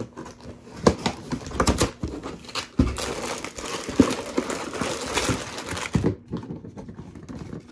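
Cardboard LEGO set box being opened and emptied: sharp snaps and knocks as the thumb tabs are popped and the box is handled, then a dense rustle and crinkle of plastic parts bags sliding out, stopping abruptly about six seconds in.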